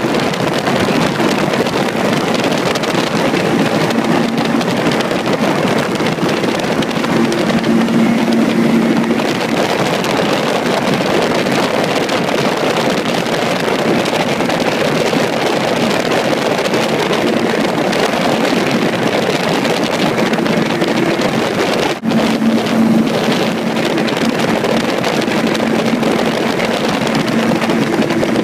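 Gyrocopter in flight: its engine and propeller drone steadily under heavy wind rushing over the microphone, with a brief dropout about three quarters of the way through.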